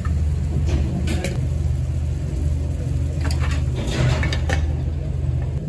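Eggs being cracked and dropped into a small aluminium pan of cooking tomatoes, with a few light clicks and taps of shell and fingers against the pan, about a second in and again around three to four seconds in. Under them runs a steady low rumble.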